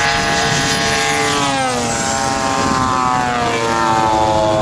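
Two radio-controlled model propeller warbirds flying past in formation, engines droning steadily. The engine pitch falls twice as first one plane and then the other goes by.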